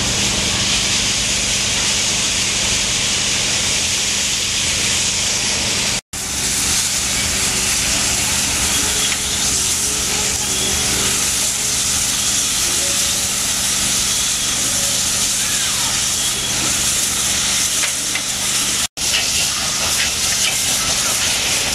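Steam locomotive hissing steam steadily, with a low steady hum underneath. The sound drops out completely for an instant twice.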